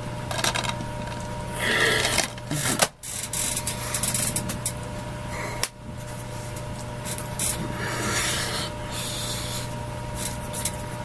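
Irregular rustling and rubbing of hands and clothing from signing close to the microphone, over a steady low electrical hum.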